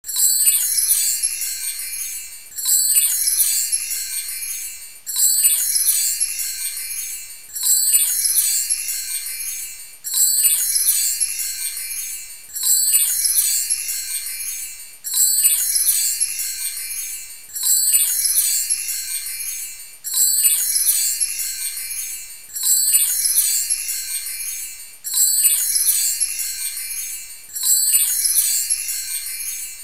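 A high, glittering chime sound looped over and over, each pass starting suddenly and fading away over about two and a half seconds.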